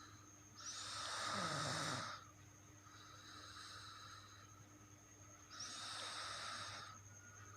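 Snoring: two loud, noisy snoring breaths about five seconds apart, one about a second in and one near the end, with a softer breath between them.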